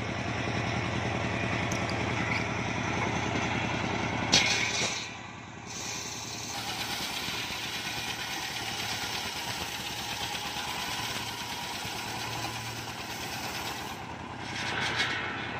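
Engine-driven homemade circular sawmill running steadily, its large toothed blade ripping a mahogany log lengthwise, with a single sharp knock just past four seconds in.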